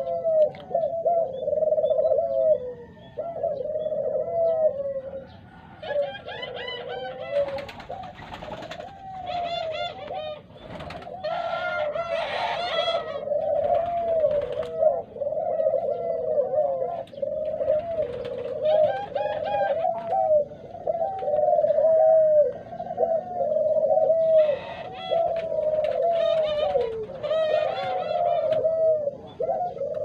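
A flock of Barbary doves (ringneck doves) cooing continuously, many birds' rolling coos overlapping. Bursts of higher-pitched chirping calls are mixed in a few times, about a fifth of the way in, around a third and again near the end.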